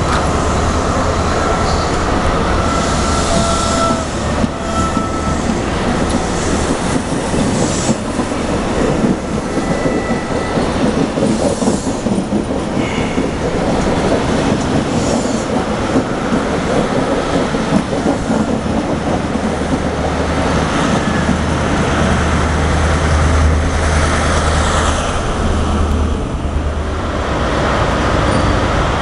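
InterCity 125 high-speed train rolling past along the platform: steady wheel rumble and clatter over the rail joints, with brief high-pitched wheel or brake squeals in the first half. Near the end the Class 43 diesel power car's engine hum grows louder as it comes alongside.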